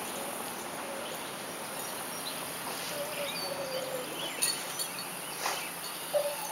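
Outdoor ambience: a steady hiss with a few short bird chirps and faint thin wavering tones, and a few soft clicks near the end.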